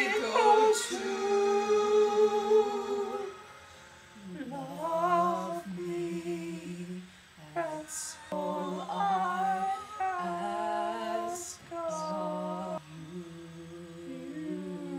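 Humming a slow tune in long held notes, with short breaks between phrases and a brief pause about four seconds in.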